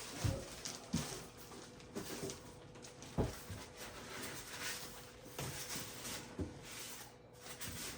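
Scattered light knocks and rustling from hands rummaging through a statue's packaging and parts.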